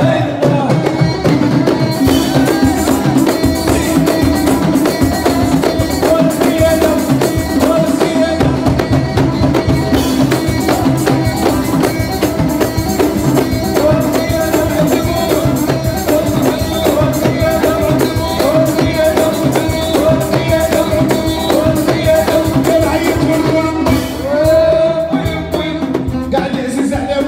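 Live Moroccan band playing an instrumental passage: a sustained melody line on keyboard, violin and saxophone over a dense, steady beat of frame drums and hand drums.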